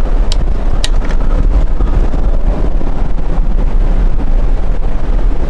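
Wind buffeting the microphone: a loud, steady low rumble, with two short clicks within the first second.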